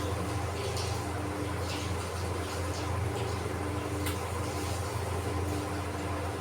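Steady low hum with faint, irregular crackles and pops above it, typical of a fish curry simmering and bubbling in a pan on the stove.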